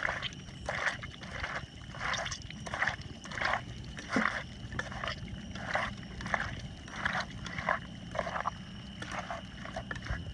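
A hand squelching and mixing wet, seasoned raw meat in a metal pot, a soft squish about twice a second, kneading in the marinade.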